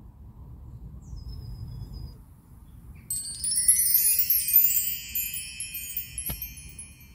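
Wind chimes tinkling, a cluster of high ringing notes that starts about three seconds in and keeps being re-struck as it fades.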